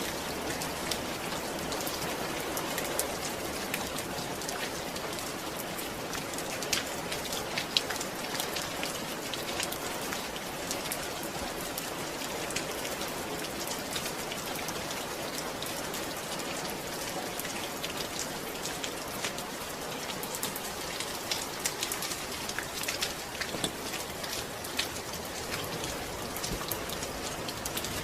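Steady rain falling on a surface, an even hiss with many scattered drop ticks.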